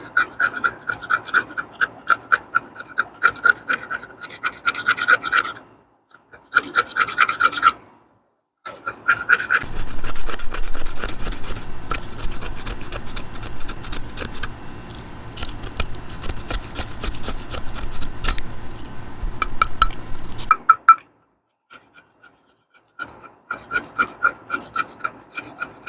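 The metal grater of a Zippo fire-starting multi-tool is rasped back and forth over a piece of wood to shave tinder, in quick repeated strokes of about two a second. There are brief pauses about six and eight seconds in, and a longer one near the end.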